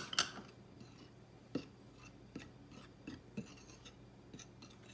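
A metal fork stirring flour in a glass baking dish: faint scraping, with scattered sharp clicks as the tines knock against the glass.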